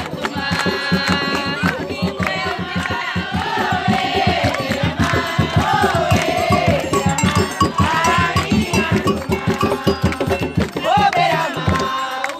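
A crowd of devotees singing an Afro-Brazilian chant for Iemanjá together, with fast, steady hand clapping and percussion keeping the rhythm.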